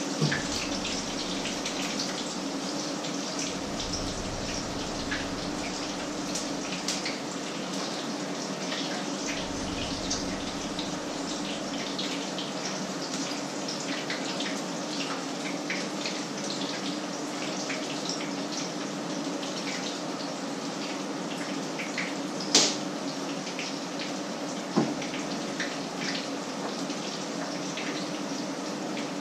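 Patties frying in oil in a pan, sizzling steadily with many small crackles over a low steady hum. Two sharp knocks come in the last third.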